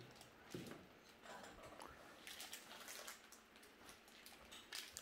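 Near silence: room tone with a few faint rustles and light clicks.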